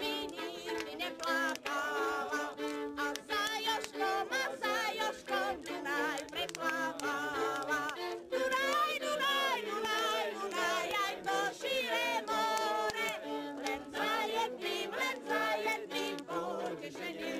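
Music: a wavering, sung melody over steady low held notes.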